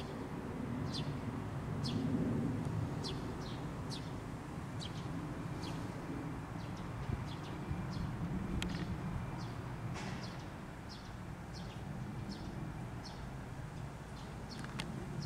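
Small birds chirping in the trees, with short, high, falling chirps about once or twice a second over a steady low background rumble.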